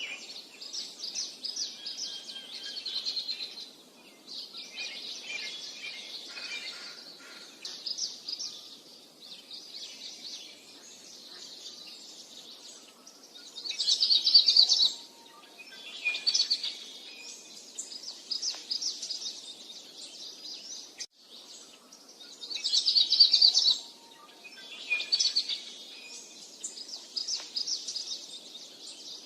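Several songbirds singing continuously in high trills and chirps, with the loudest bursts of song about fourteen and twenty-three seconds in, over a faint steady background noise.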